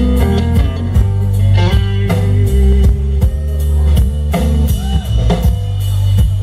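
Live blues band playing a slow blues: a Stratocaster-style electric guitar solos with long held and bent notes over electric bass and drum kit, with no singing.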